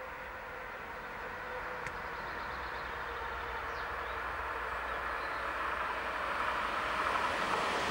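Electric Alstom Regio-Citadis tram-train approaching on railway track, its rolling and running noise growing steadily louder and loudest near the end.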